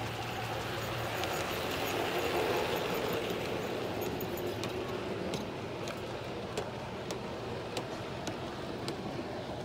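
Large-scale Aristocraft model train, a Santa Fe ALCO PA diesel pulling streamlined passenger cars, rolling past on garden-railway track: a steady rumble of wheels and motor that swells and then eases. In the second half, sharp clicks come about every half second as the car wheels run over the track joints.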